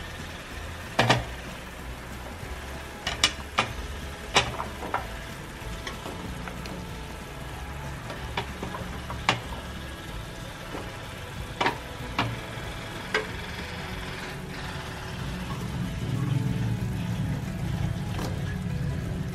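Pork simmering in soy sauce in a pot with a steady sizzle, while cubed carrots are dropped in: a scatter of sharp knocks, the loudest about a second in, then several more over the next dozen seconds.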